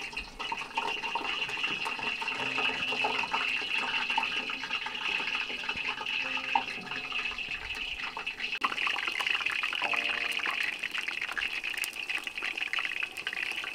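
Battered potato slices deep-frying in a large pot of hot oil, a steady sizzle thick with small crackles and pops.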